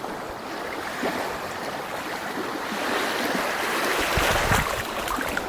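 Sea waves washing onto a beach, a steady hiss of surf that swells slightly louder toward the end, with a low rumble of wind on the microphone in the last second or so.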